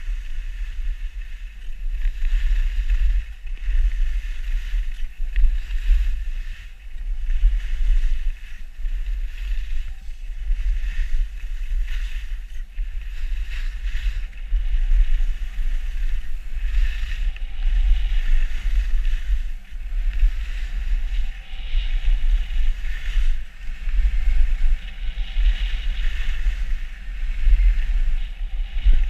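Wind buffeting an action camera's microphone during a ski descent, a constant gusty rumble, with a steady hiss of skis sliding over snow that swells and fades.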